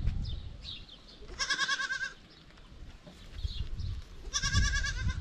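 A goat bleating twice, each call under a second long with a quavering pitch.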